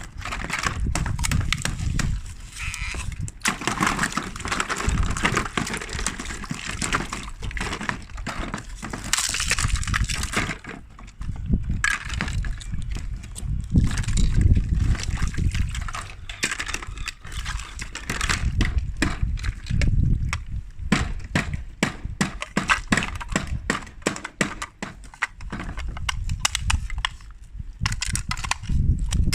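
Ice cubes being tapped, scratched and knocked together: a dense, uneven run of quick clicks and crunches with heavier knocks among them.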